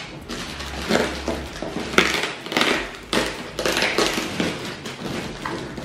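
Clear plastic wrapping crinkling and rustling in irregular bursts as hands grip and move a plastic-wrapped toy.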